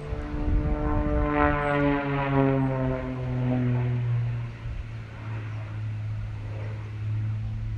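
Aerobatic display plane's engine passing overhead, its note falling steadily in pitch as it goes by. A steady low drone carries on after the pitch drop.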